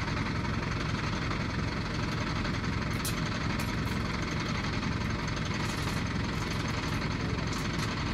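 ACE 14XW pick-and-carry crane's diesel engine idling steadily while the crane holds its load, with a few faint light clicks.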